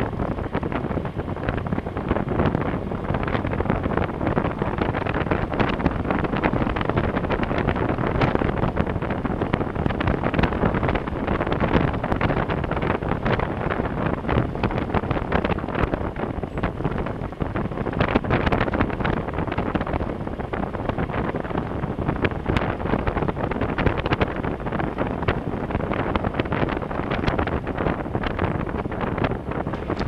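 Wind buffeting a helmet-mounted microphone while riding a motorcycle, with the engine and the tyres on a loose gravel road running underneath and many small crackles throughout.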